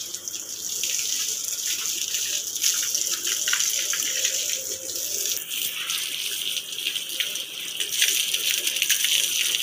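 Garden hose water spraying and splashing over a motorcycle as it is rinsed, and onto the ground: a steady hiss with irregular splatter.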